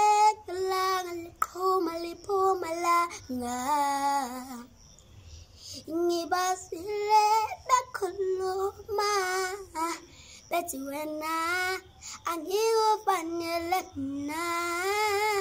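A young boy singing a song unaccompanied, in short phrases broken by brief pauses for breath.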